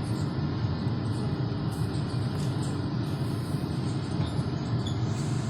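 Steady low rumble of a Shanghai Metro Line 8 type 08C02 train, unchanging throughout.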